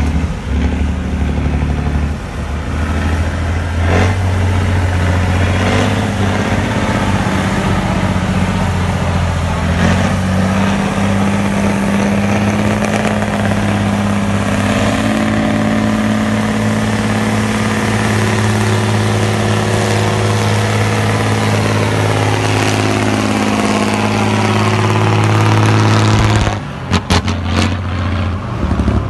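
Off-road trial truck's diesel engine working hard under load as it climbs out of a pit, a loud steady drone whose pitch climbs twice. It drops off suddenly near the end.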